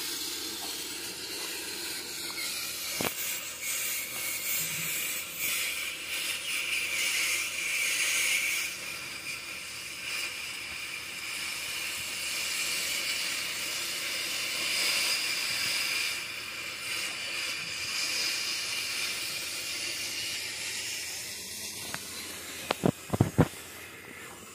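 Oxy-fuel cutting torch hissing steadily as it cuts through steel, with a few sharp knocks near the end.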